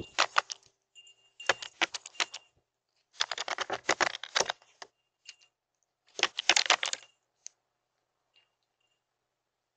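Herring gull's bill pecking nuts off a concrete tabletop: rapid clattering taps in four quick bursts, then a couple of single taps.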